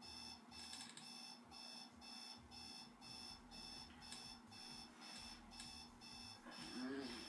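Digital alarm clock beeping steadily and faintly, about two beeps a second, left sounding to keep a sleeper awake.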